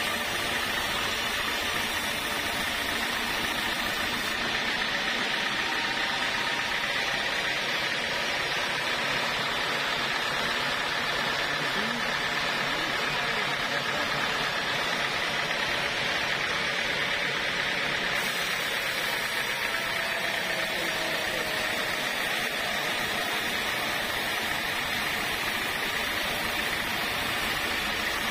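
Band sawmill running steadily, its blade sawing through a squared acacia log, with a constant high hum over the machine noise.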